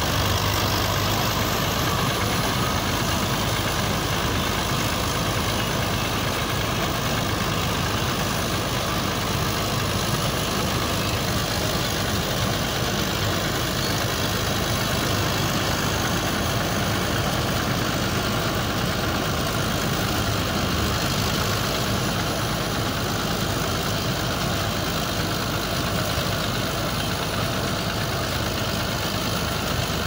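Combine harvester's diesel engine and threshing machinery running steadily as it harvests maize, an even, unbroken hum.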